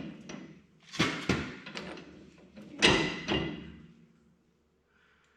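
Heavy metal clanks from the tractor's three-point linkage being unhooked and handled: two knocks about a second in and a louder clank near three seconds, each ringing briefly before dying away.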